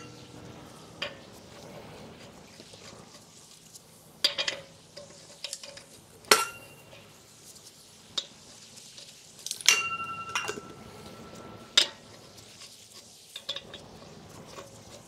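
Metal clinks and taps from lug nuts and hand tools while a wheel is refitted: about seven sharp separate clinks spread out, one about ten seconds in ringing on briefly.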